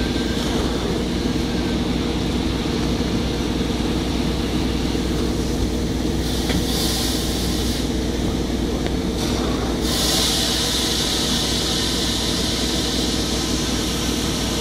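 Sides airport crash tender's engine and fire pump running with a steady drone while it throws water from its roof turret and hose lines. A high hiss of water spray comes in briefly just past halfway, then steadily from about two-thirds in.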